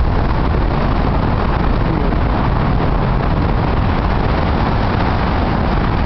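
Steady, deep drone of road traffic crossing the bridge, with no single vehicle standing out.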